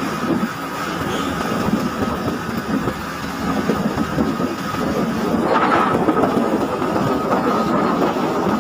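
Vehicle engine running steadily with road rumble and wind buffeting, heard from on board an open-sided vehicle on the move, with a thin steady whine running through it; a brief louder swell comes about five and a half seconds in.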